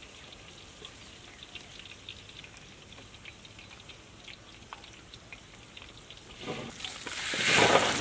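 Potato fries sizzling in hot oil in an iron kadai, a low patter of small crackles. Near the end a much louder rushing burst as the fries are tipped out onto a cloth.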